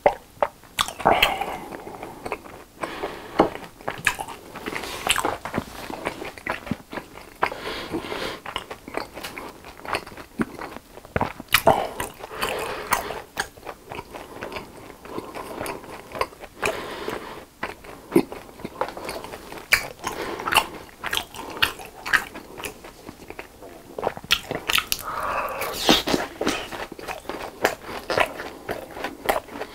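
Close-miked chewing and crunching of fried cheese snacks, with many sharp wet mouth clicks throughout.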